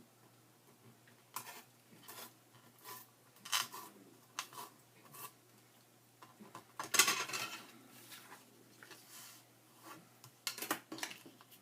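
Paper and craft tools handled on a work table: a series of short rustles, snips and light clicks, the loudest cluster about seven seconds in.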